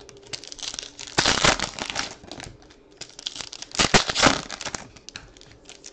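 Foil wrapper of a trading-card pack crinkling and tearing as it is ripped open by hand, in two louder bursts, about a second in and again about four seconds in.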